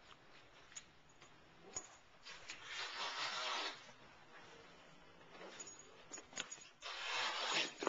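A Chihuahua and a Siamese cat scuffling in a play-fight: two rustling bursts, each about a second long, one about three seconds in and one near the end, with light scattered clicks between them.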